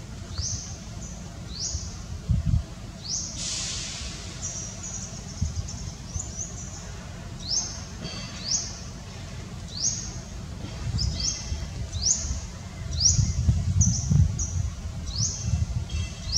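Bird repeatedly giving short, high chirps that drop in pitch, about one a second, over a low, uneven rumble that swells near the end.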